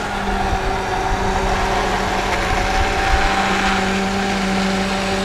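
Hand-held electric immersion blender running steadily while puréeing cooked tomatoes and vegetables in a pot: a constant motor hum that holds one pitch throughout.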